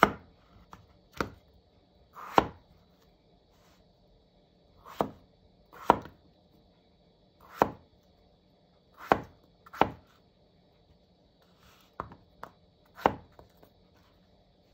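Kitchen knife cutting a peeled potato into rough chunks on a wooden cutting board: about eleven separate cuts at an uneven pace, each ending in a crisp knock of the blade on the board.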